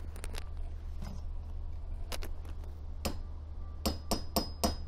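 Sharp metal-on-metal clicks and taps as a screw extractor (easy out) is worked into a drilled-out nozzle bushing in an injection sprayer block: a few scattered clicks, then a quick run of about four taps a second near the end, over a steady low hum.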